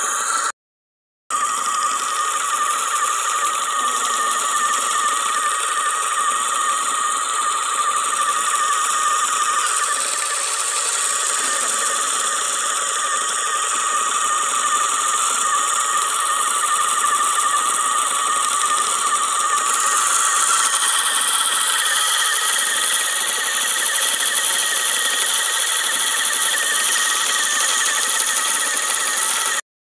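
Small motor-driven wooden spinner whirling its flyer and bobbin as it twists yarn, with a steady high-pitched whine and squeal from the motor and spinning bearings. The sound cuts out for a moment shortly after the start, and the upper pitches shift slightly about two-thirds of the way through.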